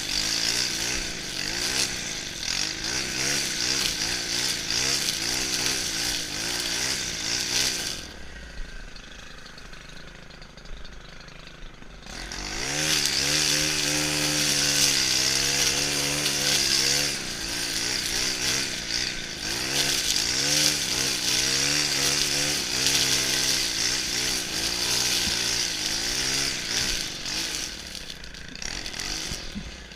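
Stihl FS 131 brushcutter's 36cc engine running at cutting speed, its pitch rising and falling as the throttle is worked while trimming grass. About eight seconds in it drops to a much quieter idle for about four seconds, then revs back up.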